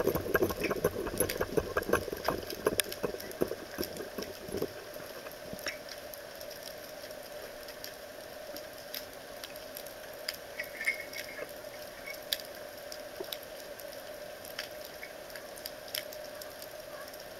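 Underwater sound through a camera housing: scattered sharp clicks and crackles over a steady hiss. For the first four to five seconds a louder low rush of water moving past the housing covers it, then it settles.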